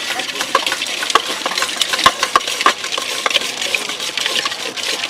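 Steel spoon stirring puffed-rice jhalmuri in a steel bowl: quick, irregular clinks and scrapes of metal on metal as the mix is tossed.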